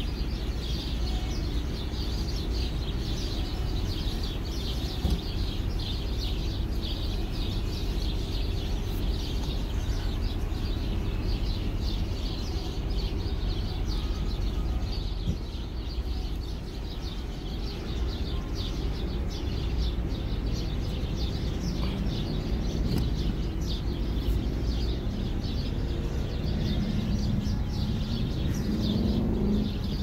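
A large flock of birds gathered in a tree at sundown, chirping all at once in a dense, unbroken chorus, over a steady low rumble. Near the end a low engine-like sound rises and falls beneath the birds.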